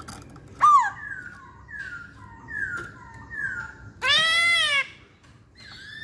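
Black-throated laughingthrush (poksay Hongkong) calling: a sharp falling whistle, then four repeated falling whistled notes a little under a second apart, and then a loud arched call, rising and falling, lasting about a second.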